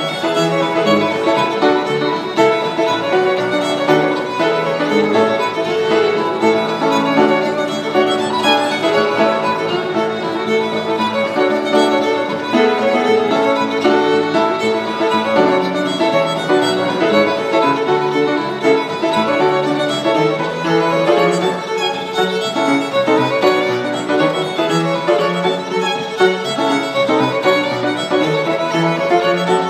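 Fiddle playing an Irish traditional dance tune with quick, busy notes throughout, accompanied by piano.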